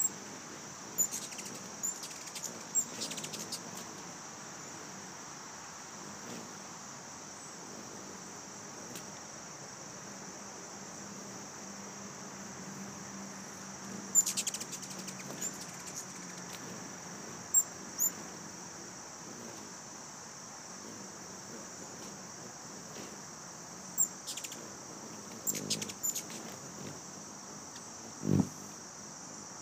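A steady high-pitched insect trill runs throughout. Over it come clusters of short, sharp, high chittering chips from ruby-throated hummingbirds chasing around a feeder, about a second in, around the middle, and again near the end. A single low thump comes just before the end.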